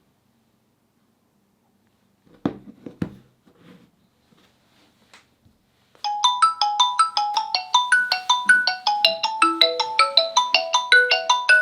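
Xiaomi POCO F2 Pro smartphone playing a ringtone through its speaker: a quick melody of short pitched notes starts about six seconds in, with lower notes joining later. Before it come two sharp knocks and a few faint small noises.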